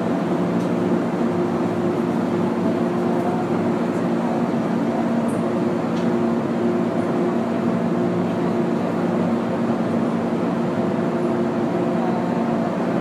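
MTR Kwun Tong line M-train (modernised Metro-Cammell EMU) heard from inside cab car A213, running at a steady speed between stations. Wheels on rail make a steady rumble under an even hum that holds its pitch.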